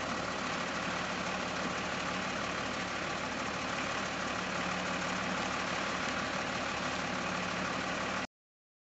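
Iveco LGV flatbed truck's diesel engine idling steadily, heard from a distance. It cuts off abruptly about eight seconds in.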